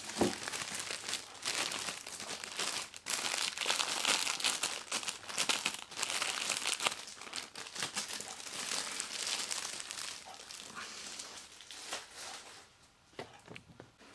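Clear plastic wrapping crinkling and rustling as it is handled around a boxed massage unit, dense and continuous, dying down near the end.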